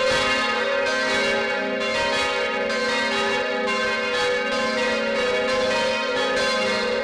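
Church bells pealing: several bells struck over and over in overlapping succession, their tones ringing on steadily.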